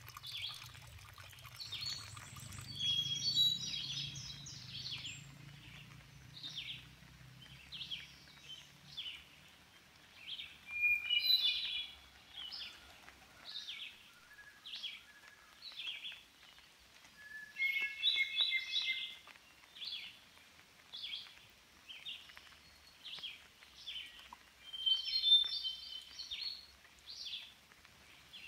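Songbirds singing in a spruce forest. One bird repeats a short high note a little under twice a second, while another sings a longer, fuller phrase about every seven seconds; those phrases are the loudest sounds.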